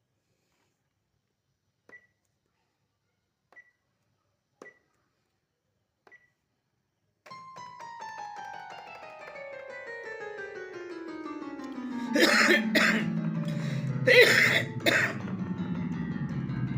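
A few faint short clicks, then a Korg Krome synthesizer workstation sounds a patch: a rich tone falling steadily in pitch over several seconds, with several loud percussive hits near the end.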